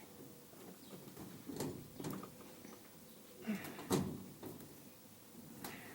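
Occasional knocks, clunks and scrapes of work on the metal interior of a stripped school bus, the loudest about two and four seconds in.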